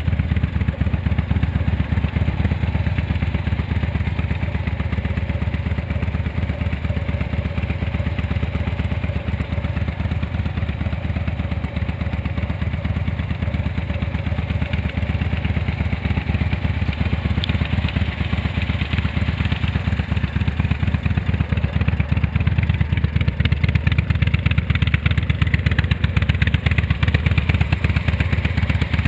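Harley-Davidson FXDC's V-twin engine running through aftermarket DOUBLEHEAD Type II silencers: a steady, pulsing exhaust note that grows a little louder over the last few seconds.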